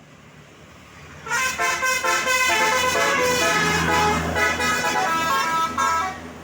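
A bus's multi-tone telolet (basuri) horn playing a quick melody of short, changing notes, starting about a second in and cutting off near the end, over a low rumble.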